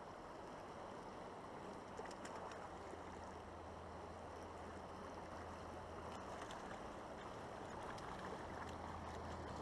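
Faint, steady rush of river current rippling past the bank, with a few light clicks.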